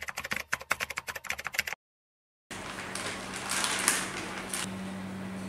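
Rapid typing sound effect of key clicks, stopping about two seconds in. After a short silent gap come faint rustling and handling noises, over a steady low hum.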